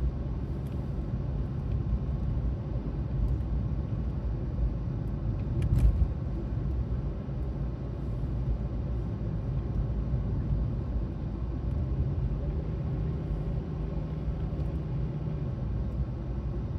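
Steady low road and engine rumble heard inside a moving car's cabin, with one brief click about six seconds in.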